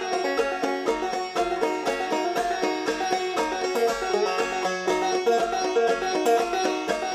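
Instrumental music: rapid plucked string notes over a steady low beat about twice a second.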